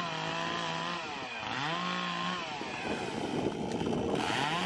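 Two-stroke gas chainsaw revving in repeated throttle bursts, its pitch rising, holding, then dropping about every second and a half, while cutting brush.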